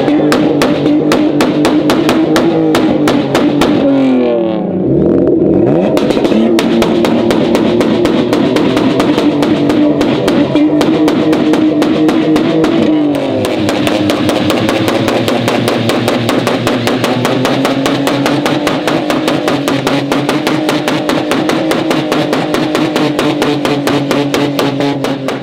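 Music with a fast, steady beat, with pitch sweeps about four seconds in and again near the middle.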